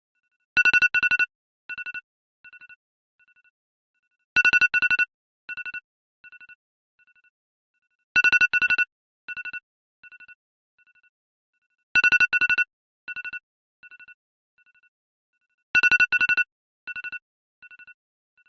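Apple iPhone alarm tone ringing: a loud double beep followed by a string of quieter, fading beeps, like an echo. The pattern repeats about every four seconds, five times over.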